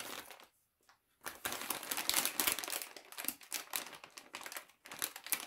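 Plastic bag of zip ties crinkling and crackling as a hand rummages through it to pick out small ties. The sound stops for about half a second early on, then resumes and carries on.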